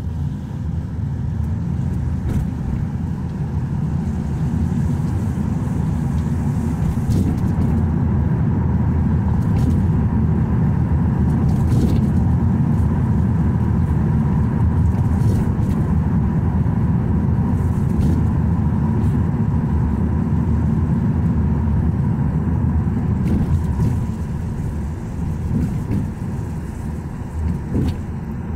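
Steady low engine and road rumble heard from inside a moving bus on a wet road, with a faint steady hum and a few light clicks or rattles now and then.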